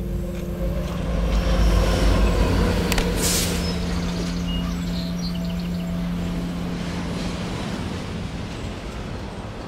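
A heavy vehicle passing close by: a low rumble that is loudest about two seconds in, then steady running noise that slowly fades.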